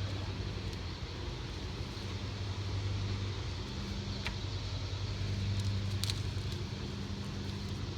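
A steady low motor hum with an even pitch, over light outdoor background noise, with a few faint ticks.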